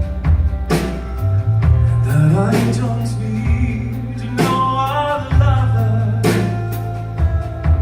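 Live band music with a steady bass, drum hits about every two seconds, and a melody line that slides up and down in pitch between sung lines.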